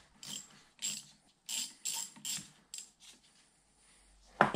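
Short sharp metal clicks, about two a second, as a hand tool turns a screw extractor in a seized Allen-head screw, then one louder metal knock near the end.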